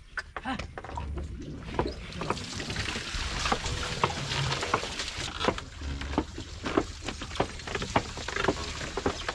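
Wooden bullock-driven Persian wheel starting to turn as the bull walks the circuit: its wooden gearing gives irregular clacking knocks and creaks. These start about half a second in and grow louder about two seconds in.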